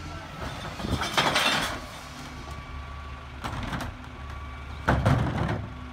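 Engine of a CNG-powered Ez-Pack Goliath rear-load garbage truck running steadily, with two loud bursts of clatter as trash carts are tipped and emptied into the hopper by hand: one about a second in and another near the end.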